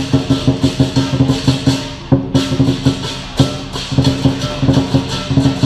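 Chinese lion dance percussion: a big drum, cymbals and gong beating a fast, steady rhythm. The cymbals drop out briefly about two seconds in, then come back.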